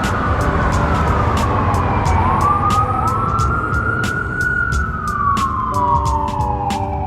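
Emergency vehicle siren wailing, slowly rising and falling in pitch, over a loud low street rumble; a second sweep overlaps the first about two seconds in.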